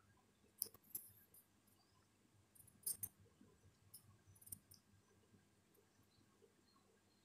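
Hot oil frying batter on a rosette mold, faint, with a scattering of sharp crackling pops: two about half a second to a second in, a close pair around three seconds, and a few more around four to four and a half seconds.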